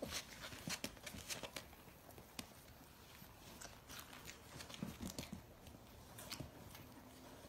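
Poodle puppies scuffling and play-biting in a pen: faint, irregular small clicks, scratches and chewing sounds, with a couple of low grunts about five seconds in.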